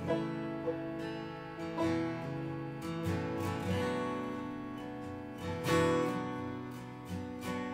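Live acoustic folk music without vocals: a Gibson J-45 acoustic guitar strummed and a banjo picked over sustained harmonium chords. Louder strums land about two, three and six seconds in.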